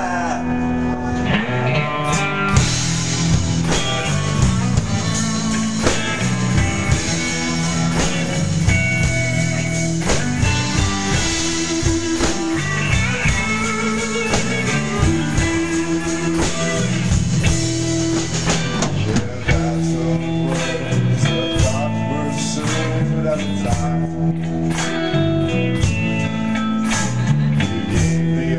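A rock band playing live: electric guitar over bass guitar and drum kit, with steady drum hits throughout.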